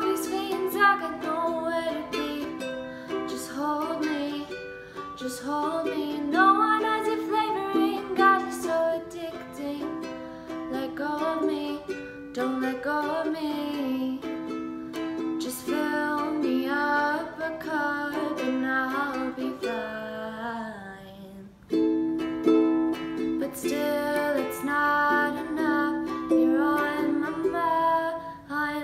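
A Luna ukulele being played, with a young woman singing over it. The music breaks off briefly about three-quarters of the way through.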